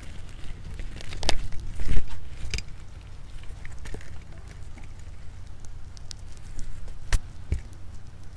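Pet rats moving about on artificial grass: light scratching and patter with scattered sharp clicks, and a few louder knocks, the loudest about two seconds in and another near the end.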